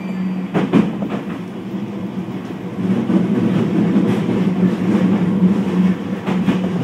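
Keio 1000 series electric train with a Toyo IGBT-VVVF drive, running, heard from inside the car: a steady rumble with a held hum and a few wheel knocks over rail joints about a second in. The running noise grows louder about three seconds in.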